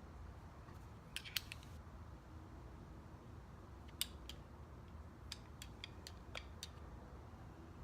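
Scattered light, sharp clicks and taps of small metal parts being handled on a brake caliper during a piston and dust-boot rebuild: two about a second in, two more around four seconds, then a quick run of five or six.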